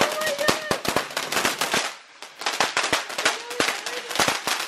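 Ground fountain firework spraying sparks with dense, rapid crackling pops, dropping off briefly about two seconds in and then crackling again.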